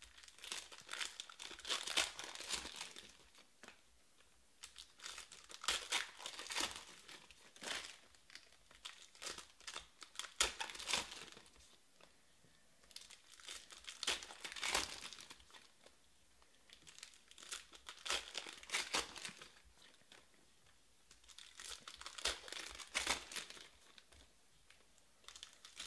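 Foil trading-card pack wrappers being torn open and handled, crinkling in bursts about every four seconds with short pauses between.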